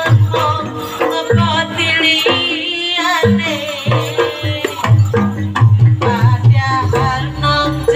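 Javanese jaranan accompaniment music: hand drums keep up a steady beat under a singer's wavering, ornamented vocal line.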